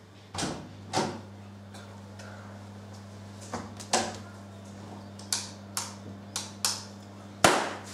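Knocks and latch clicks of a door, then a wall light switch flicked about five times in quick succession near the end, the last press loudest; the light stays off because the power is out. A low steady hum runs underneath.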